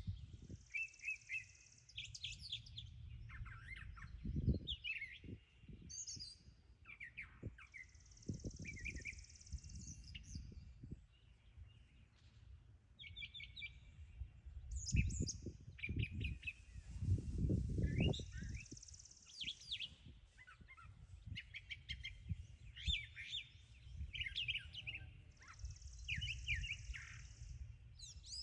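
Brown thrasher singing a long string of short, varied phrases, many given in quick repeated pairs. A high buzz comes and goes every few seconds, and a low rumble runs underneath, strongest near the middle.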